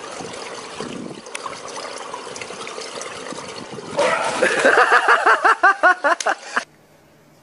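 Swimming-pool water sloshing, then a loud splash about four seconds in as a swimmer bursts up out of the water. It is followed by a person's voice in a quick run of short, rising-and-falling cries that cuts off suddenly near the end.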